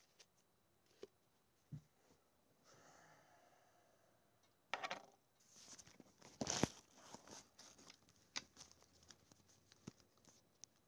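Handling noise from a phone being moved: a few isolated clicks and taps, then from about halfway in a run of rubbing and scraping with sharp clicks as fingers slide over the phone near its microphone.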